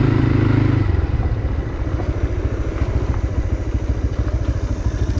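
A vehicle's engine running under way, with a steady held note for about the first second that then drops off to a lower, rapid throbbing.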